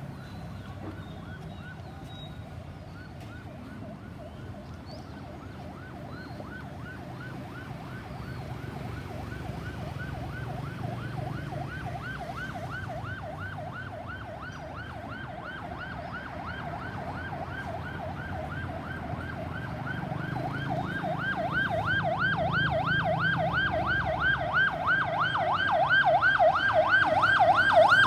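Ambulance siren in a fast, rapidly repeating yelp, growing steadily louder as the vehicle approaches and loudest near the end, over low traffic rumble.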